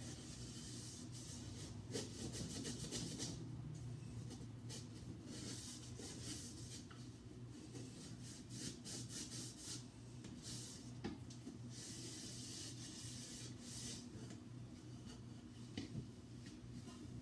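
Scouring side of a sponge scrubbing a refrigerator's plastic surfaces in rapid back-and-forth strokes, with pauses between bouts.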